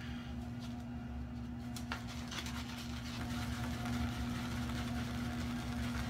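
iKon 102 safety razor with a Bluebird blade scraping through lather and stubble on the cheek in short strokes, over a steady low hum.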